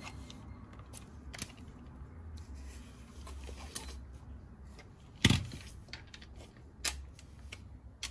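Scattered metallic clicks and clinks of hand tools and sockets being handled as a socket is swapped onto a ratchet, with one louder clack about five seconds in.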